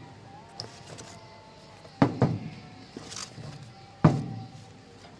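Large aluminium-can electrolytic capacitors (JUNZL 100 µF, 100 V) being taken from a cardboard box and set down on a paper-covered table. Two sharp knocks about two seconds apart, with lighter clicks and rustling of the box and paper between them.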